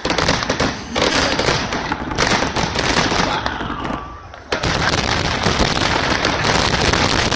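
Fireworks finale barrage: many shells bursting at once in a dense, continuous run of rapid bangs and crackling, with a brief lull about four seconds in before it resumes.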